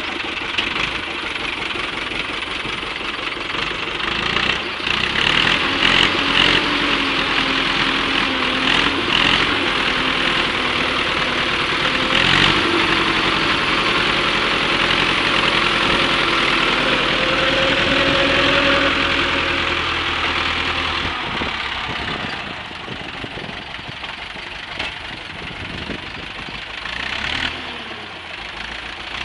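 Ursus C-360 tractor's four-cylinder diesel engine running close up, its speed rising as the TUR 2B front loader works the silage, then dropping back to a lower, quieter run about three-quarters of the way through. A few short knocks sound over it.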